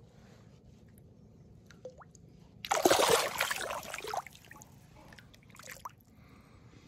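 A striped bass let go in shallow water splashes hard as it kicks away, about three seconds in, lasting just over a second. A few small water splashes follow.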